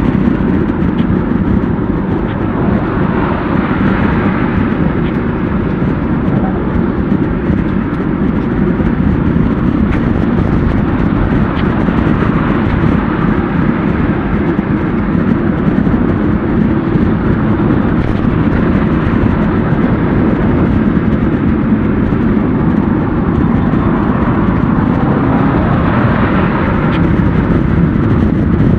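Steady rumble of wind and road noise on a bicycle-mounted action camera's microphone while riding through city traffic.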